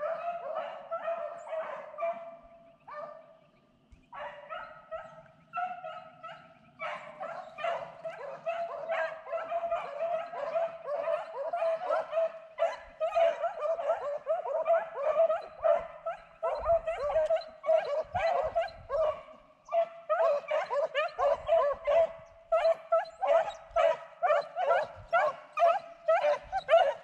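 A pack of rabbit hounds baying on a running rabbit's trail, their voices overlapping in a rapid, steady run of yelps. There is a short lull about three seconds in.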